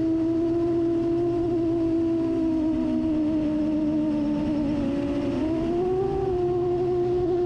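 FPV drone motors and propellers whining steadily, the pitch wavering with the throttle, dipping slightly and rising again about six seconds in.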